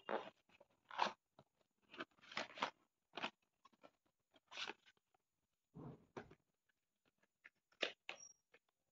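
Brown cardboard parcel packaging being torn and crinkled open by hand, in short, irregular crunching crackles.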